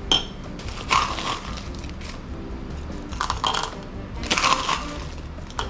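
Background music, with four or five short crunching, scraping noises over it.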